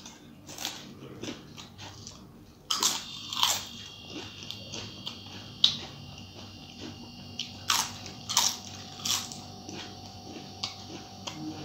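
Crisp fried papad being bitten and chewed: a string of sharp crunches a second or so apart, loudest about three seconds in and again around eight seconds in.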